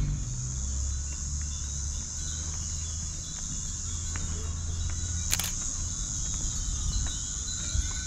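Steady high-pitched insect chorus over a low hum that fades out about five seconds in, with one sharp click near the middle.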